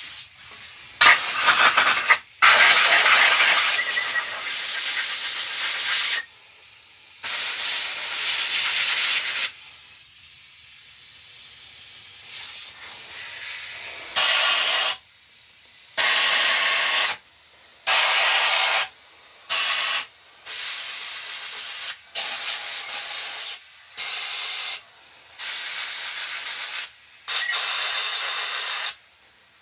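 Compressed-air blow gun blasting in repeated bursts of hiss, about a dozen of them a second or two long with short pauses, blowing water out of a freshly washed engine block half.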